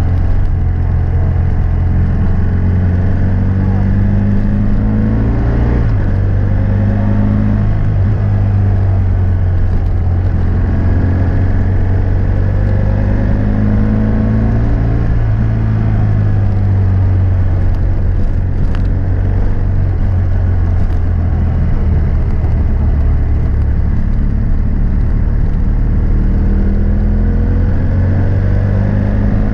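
BMW F800S parallel-twin engine through a GPR Furore Nero aftermarket exhaust with its dB-killer fitted, heard from a bike-mounted microphone while riding. The engine note is loud and continuous, its pitch climbing and dropping several times as the bike accelerates, shifts and eases off.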